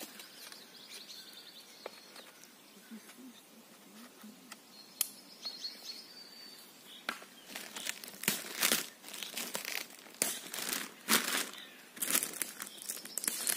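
Clear plastic packaging crinkling and rustling in repeated bursts from about halfway through, as an inflatable PVC boat is unwrapped. Before that, a bird chirps faintly a few times.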